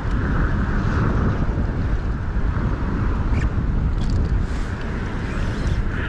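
Wind buffeting an action camera's microphone on open water, a steady low rumble.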